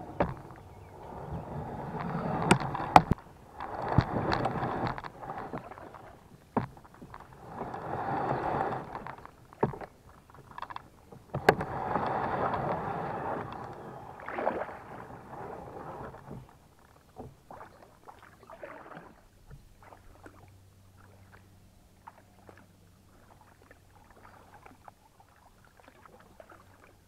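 Kayak hull scraping and grinding over fallen logs and branches in three rough pushes, each two to three seconds long, with several sharp knocks as branches strike the hull. After that come only faint water sounds from paddling on open water.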